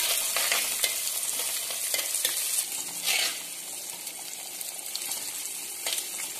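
Shallots and garlic sizzling in hot oil in a clay pot, stirred with a steel ladle that scrapes against the pot in short strokes.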